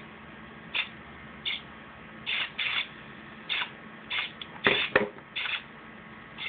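Small hobby servos driving a toy WALL-E robot's arms, whirring in short bursts of a fraction of a second, roughly one or two a second. About three-quarters of the way through there is a louder, fuller knock or clatter.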